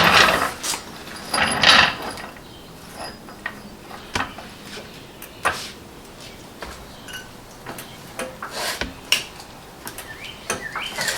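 Scattered clicks, knocks and a short scrape of a car jack and its plastic jacking puck being handled and set under the car.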